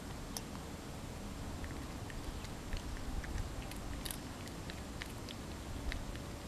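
A Persian cat chewing small bits of food picked off the ground: a scatter of small, irregular crunching clicks.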